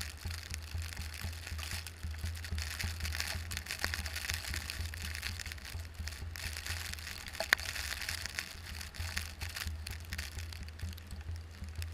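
A car driving through snow: a steady low rumble with a crackling hiss of tyres on snowy road, and one sharp click about seven and a half seconds in.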